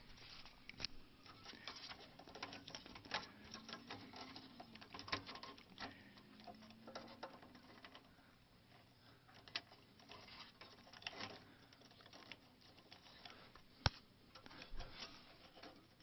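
Faint clicks, taps and rustling of fingers handling cables and plastic parts inside a desktop computer case, with one sharper click near the end.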